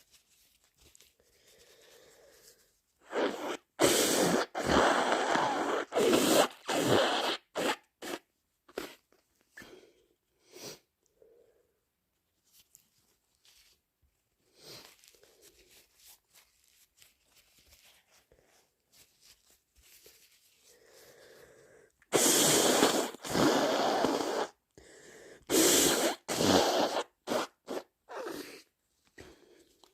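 A person with a head cold blowing a runny nose, wet and forceful. The blows come in two bunches, several in quick succession each time, with faint sniffs and rustles between.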